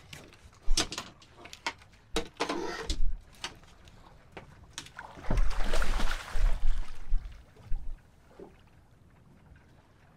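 Blue shark thrashing at the surface beside a small boat: a loud splash of water from about five seconds in, lasting a second or two. Scattered knocks and clicks from handling rod and line on the boat come before and after it.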